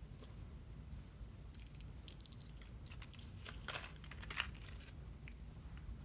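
Small metal snap-button pieces clinking and jingling together as they are picked through by hand, in a run of quick clicks from about a second and a half in, loudest just before the end of the run.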